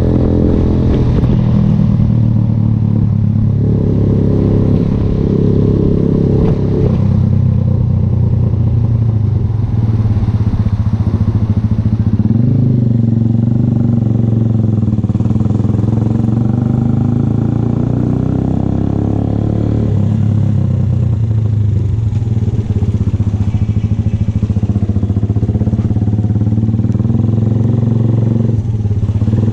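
VLR 200 motorcycle with an aftermarket Devil exhaust, running steadily at riding speed, its engine note rising and dipping gently as the throttle changes.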